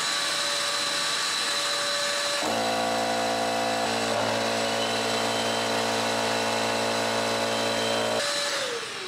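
A shop vac, an electric air compressor and an upright vacuum cleaner run together as a steady motor hum. A second, deeper motor sound joins about two and a half seconds in and stops a little before the end, after which a motor winds down, falling in pitch. The appliances are all powered from one portable power station, whose inverter carried their starting surges.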